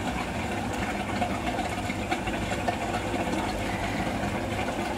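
Water from an aquaponics grow bed siphoning down a PVC standpipe and T-piece into the sump below, a steady rushing sound with a low hum underneath, the bed nearly drained.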